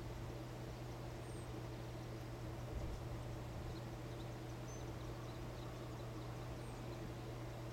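Steady rushing of muddy floodwater running down a desert wash, with faint high chirps over it and a brief low bump about three seconds in.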